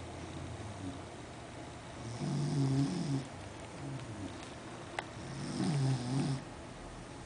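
Sleeping beagle snoring loud: two long snores about three and a half seconds apart. A short sharp click comes just before the second snore.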